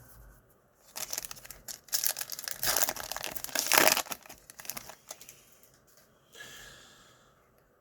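Wrapper of a Donruss Optic baseball card pack being torn open and crinkled: a run of crackly rips and crumples, loudest about four seconds in, with a fainter rustle near the end.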